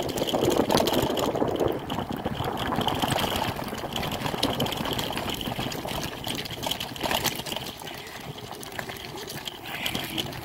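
Steady rustling and crunching of movement over a gravel and leaf-littered dirt trail, full of small crackles, with the microphone rubbing.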